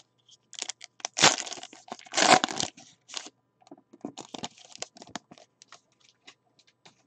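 Foil wrapper of a 2018 Panini XR football card pack being torn open and crinkled. There are two loud rips about one and two seconds in, then lighter crinkling and rustling as the wrapper is pulled off the cards.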